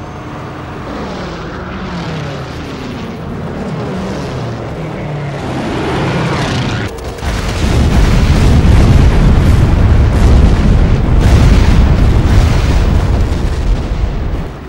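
A biplane's propeller engine drones with its pitch falling steadily as it flies past. About seven seconds in, this gives way suddenly to a loud, continuous low rumble of warship gunfire and explosions, which drops away just before the end.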